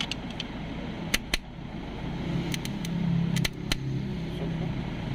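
Starter motor of a 2010 Ford Everest spinning freely once its motor terminal is bridged directly with a screwdriver. A few sharp clicks of metal contact come first, and the motor's steady hum starts about two seconds in. The starter turns but its pinion does not engage the flywheel, which points to the solenoid.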